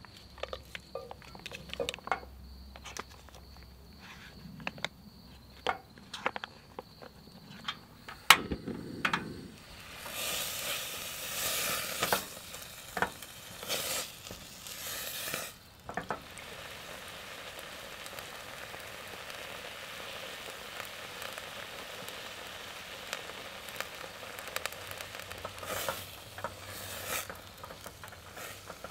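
Pouch chili heating in a stainless steel pot on a portable butane stove: light rustling and taps as the pouch is squeezed out, a sharp click about eight seconds in, then the chili sizzling, strongly at first and then steadily, with some stirring.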